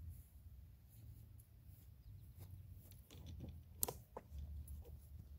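Quiet outdoor background: a faint low rumble with a few small clicks, the sharpest about four seconds in.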